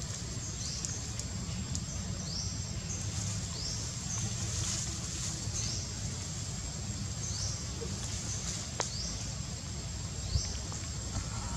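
Forest ambience: a high chirp repeats about once a second over a steady thin high whine, with a low rumble underneath and a few faint clicks.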